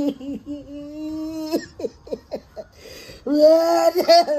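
A man wailing and sobbing loudly: long drawn-out cries, then a run of short choppy sobs, then another loud drawn-out cry near the end.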